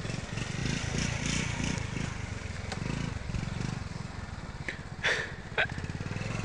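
Small motorcycle engine running steadily, with a fast, even low pulse. Two brief sharp noises come about five seconds in.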